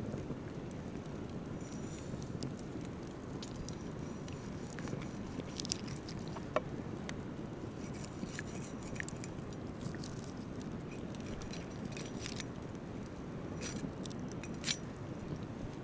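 Large kitchen knife slicing through a raw ostrich heart on a wet wooden board: soft wet squishing with scattered small clicks and a couple of sharper ticks, over a steady low rumble.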